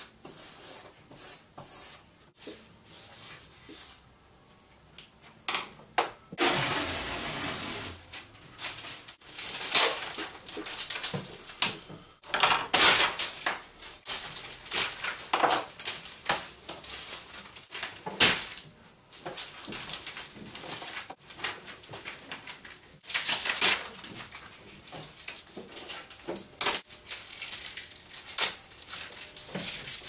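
Paper and sticky tape being handled at a table: rustling, tape pulled off a roll and knocks, in irregular bursts, with a longer stretch of tearing noise about seven seconds in.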